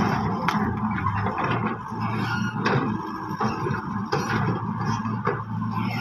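Wheeled mini excavator's diesel engine running steadily while the bucket works the ground, with several sharp knocks and scrapes spread through.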